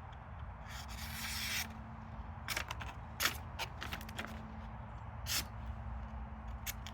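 Knife blade slicing through a sheet of paper held in the hand: a papery hiss about a second in, then several short crisp cuts and paper crackles.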